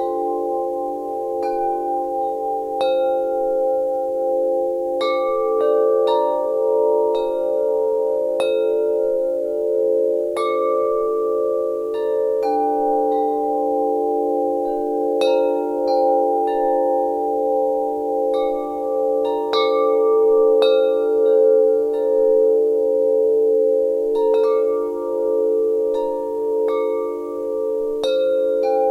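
Wind chimes ringing, with strikes coming irregularly about once a second. Each note rings on for several seconds, and the lower tones overlap into a steady pulsing hum.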